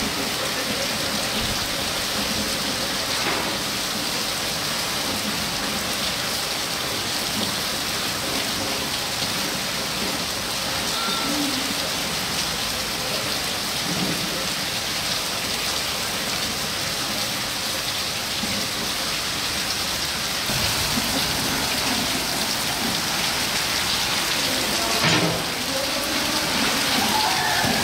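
Heavy rain pouring steadily onto a grass pitch, an even dense hiss that grows a little louder about two-thirds of the way through.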